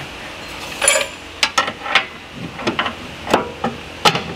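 A hammer striking metal in a series of about ten sharp blows, roughly two a second at uneven spacing, each with a short metallic ring. The blows are knocking at a rusted, seized axle cup stuck in a Polaris Ranger's front differential.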